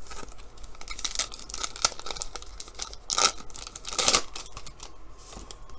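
Trading cards being handled, slid across one another and flicked, making several brisk papery swishes and crinkles.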